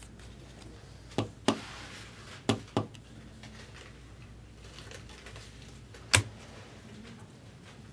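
Sharp clicks and taps of a hard plastic trading-card holder being handled and closed: two pairs of clicks in the first three seconds, then a single louder click about six seconds in.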